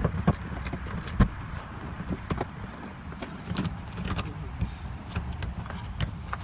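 Hand tools clicking and tapping irregularly against car body parts and fasteners while working at a stubborn, stripped screw, over a low steady rumble.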